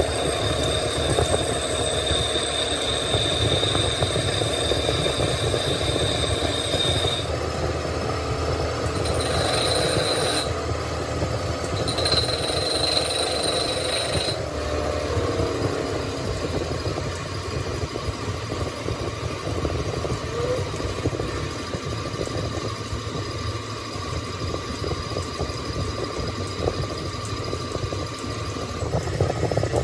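Workshop machinery running steadily. A high-pitched whine starts and stops three times in the first half, then gives way to a lower steady whine.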